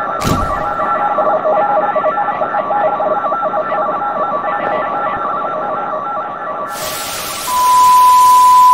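Old-radio outro sound effect: a tinny jumble of beeping, warbling tones like radio signals, with a thump just after the start. Near the end it turns to loud static hiss with a steady high beep over it.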